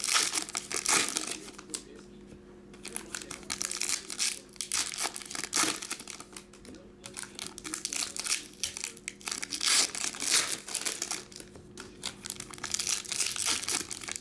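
Foil wrappers of 2022 Topps WWE Women's Division trading-card packs being torn open and crinkled in the hands. The crackling comes in repeated bursts with short pauses between them, over a faint steady low hum.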